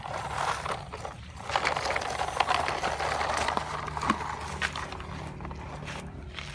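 Hands handling a plastic toy dump truck on gritty dirt: crunching and scraping of grit under its wheels and body, with scattered light plastic clicks and knocks, then a hand scraping the soil near the end.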